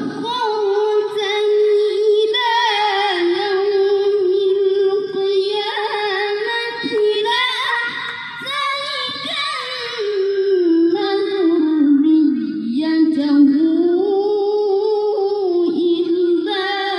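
A boy qari's high, strong voice reciting the Quran in melodic tilawah style in maqam Hijaz. He draws out long held notes with wavering ornaments.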